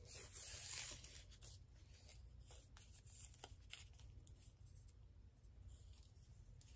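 Faint crinkling and rustling of thin plastic tablecloth strips being unfolded and twisted by hand, a little louder for about the first second, then only small scattered rustles over a low room hum.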